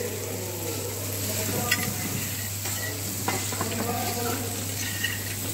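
Calamari, fish and fried rice sizzling steadily on a steel teppanyaki griddle, with a few sharp clicks of metal utensils against the steel.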